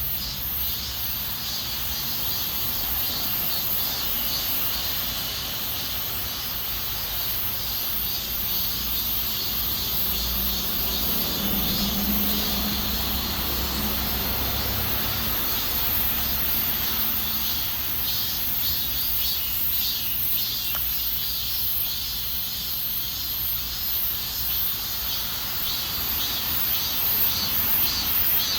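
Outdoor chorus of singing insects, a steady high-pitched shrill with a pulsing, rasping layer beneath it. A low, distant engine-like hum swells and fades in the middle.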